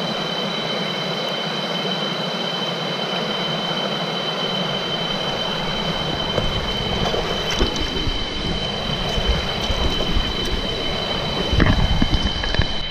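Shallow rocky jungle stream rushing steadily over stones, with insects droning in two steady high tones in the forest. Louder low rumbles come through about seven and a half seconds in and again near the end.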